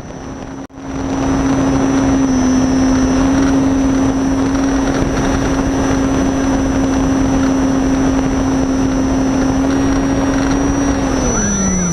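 Reichard Blizzard model glider's motor and propeller running under steady power, heard from on board the model over loud rushing air; near the end the pitch falls as the motor is throttled back.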